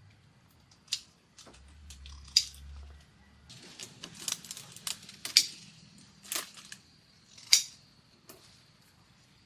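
Irregular crisp cracks, snaps and rustles of plant material being handled and broken, with four loud sharp snaps among busier rustling.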